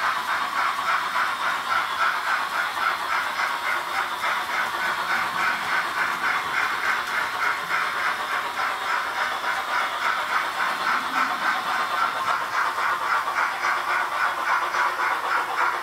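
Roco HO-scale DCC sound-decoder steam locomotive playing steady, rhythmic exhaust chuffing with steam hiss through its small onboard loudspeaker, with little bass.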